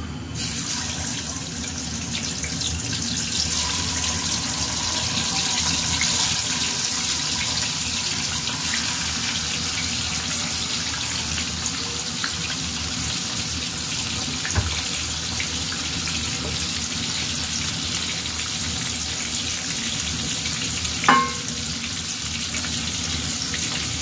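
Whole quails sizzling in hot oil in a pan. The sizzle starts suddenly as they go in and then runs steadily, with two short knocks, one past halfway and one near the end.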